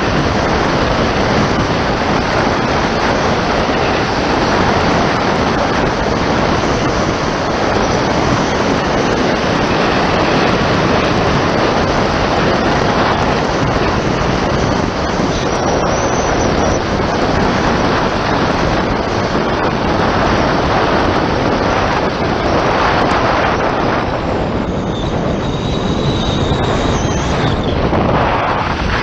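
Loud, steady wind rushing over the microphone of a camera on a bicycle descending a mountain road at speed.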